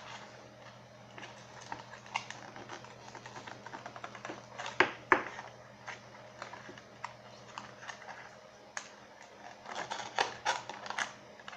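Irregular light clicks and taps of a small webcam and its plastic and cardboard packaging being handled, with two sharper clicks about five seconds in and a quick run of clicks near the end.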